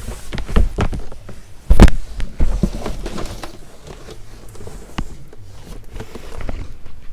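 Items and packaging being handled: a string of knocks and clicks with some rustling, the loudest knock a little under two seconds in.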